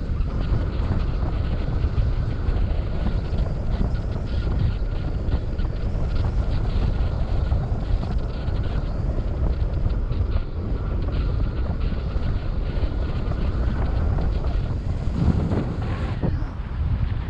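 Airflow buffeting the microphone during a paraglider flight: a steady, low rushing wind noise.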